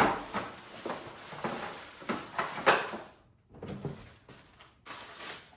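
Cardboard box and packaging of a high chair being handled and pulled open: a run of short scrapes, rustles and knocks, the loudest at the start and about two and a half seconds in.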